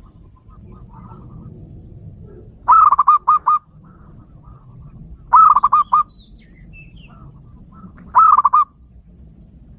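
Zebra dove (perkutut) cooing, a lure call used to draw in wild zebra doves. It gives three phrases about two and a half seconds apart, each a quick run of several short notes.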